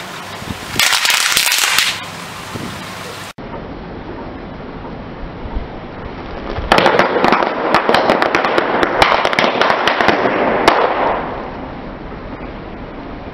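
Car tyre rolling over a strip of plastic packets of small candies on concrete: dense crackling with many sharp cracks as the packets and candies are crushed, for about four seconds from around the middle. A shorter burst of hissing noise comes about a second in, over a steady background hiss.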